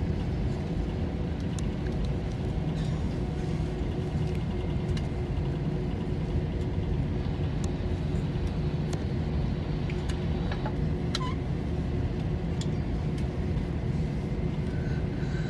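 Steady cabin noise of an Airbus A321-231 taxiing after landing: a low rumble with a constant hum from its IAE V2500 engines running at low power, and a few small clicks.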